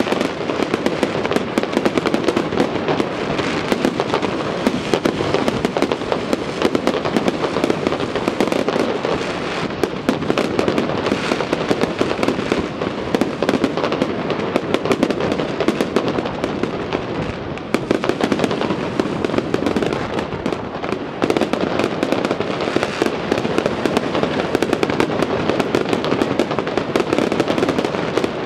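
Fireworks display: a dense, continuous run of many bangs and crackles overlapping, with no pauses.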